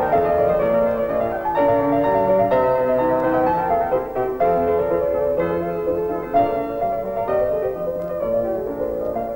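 Piano music: a tune played with chords, the notes struck and changing every fraction of a second.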